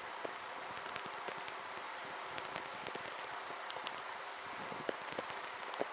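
Faint steady hiss with scattered soft ticks: low background noise between stretches of music.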